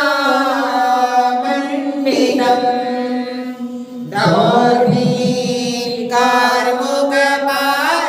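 Sanskrit devotional verses chanted melodically in long, held notes, a new phrase starting about four seconds in.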